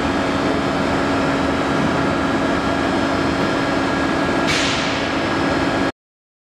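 Hydraulic press running with a steady drone and hum as its ram presses down on a metal wristwatch. About four and a half seconds in, the watch gives with a sudden sharp crack. Then the sound cuts off abruptly.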